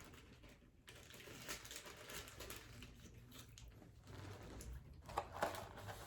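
Soft eating sounds: faint chewing with scattered light clicks and rustles of food and packaging being handled, a little louder about five seconds in.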